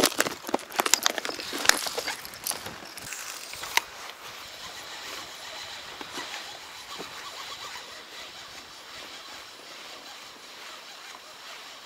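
Clicks and clatter of a plastic tackle box and a crankbait being handled over the first few seconds, then a steady hiss of wind and lapping water on the boat.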